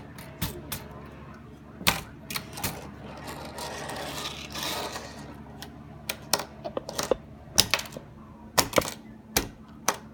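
Irregular mechanical clicks and clacks from a 1936 Smith Corona Silent typewriter being worked by hand, with a longer rustling sound about halfway through.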